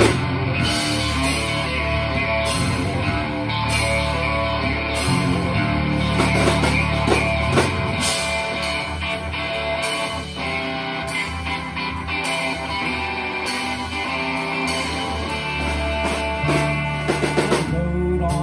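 Live rock band playing a song on electric guitar, electric bass, keyboard and drum kit, with a steady beat.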